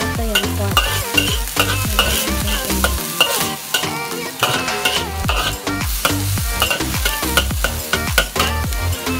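Metal spatula stirring and scraping minced pork around a wok, the meat sizzling as it fries, in quick repeated strokes. Background music with a steady bass beat plays under it.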